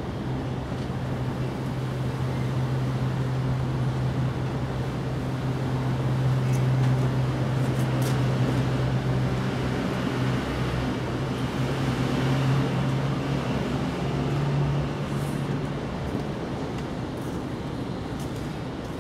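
A low engine hum that holds one pitch, swelling over several seconds and dying away about three-quarters of the way through, over a steady background of outdoor noise.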